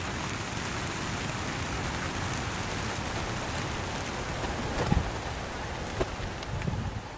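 Wings of a large flock of racing pigeons beating as the birds take off together from the transport trailers: a dense, steady rush of flapping. A couple of short thumps stand out about five and six seconds in.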